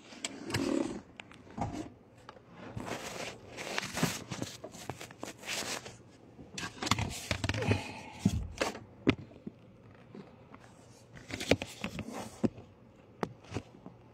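Irregular clicks, light knocks and scraping of small tools and parts being handled during hands-on repair work.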